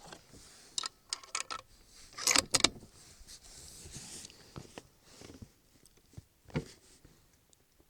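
Metallic clicks and rattles of a Savage Model 10 bolt-action rifle's bolt being worked, with the loudest cluster of clicks a little over two seconds in and a single click near the end.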